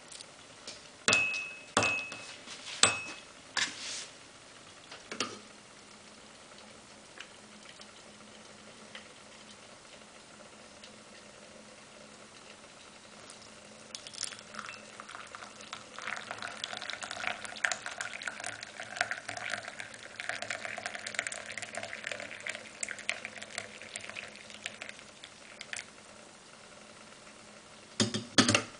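A few ringing clinks of porcelain and metal, then tea poured from a stainless teapot into a small porcelain cup, splashing for about ten seconds. Two knocks near the end.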